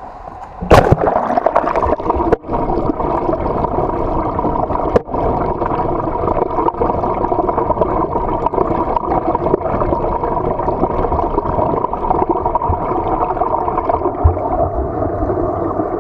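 Steady churning and bubbling of water heard underwater, from a swimmer's freestyle kick and arm strokes. A sharp knock sounds about a second in.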